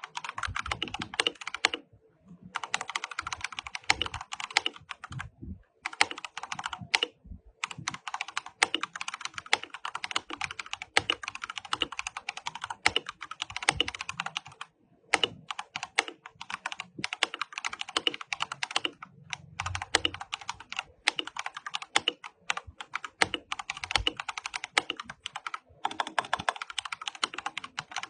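Akko 3098B 98-key mechanical keyboard being typed on: fast runs of key clicks lasting several seconds, broken by a few short pauses.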